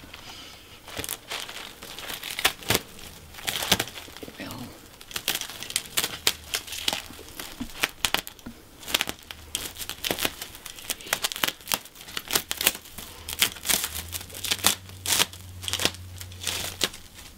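Crinkling and tearing: a long run of sharp crackles in quick succession, thickest in the second half.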